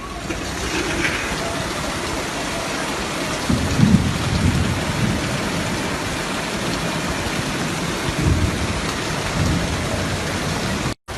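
Heavy rain pouring down in a steady, loud hiss, with a few deeper low rumbles swelling up about three to four seconds in and again about eight seconds in.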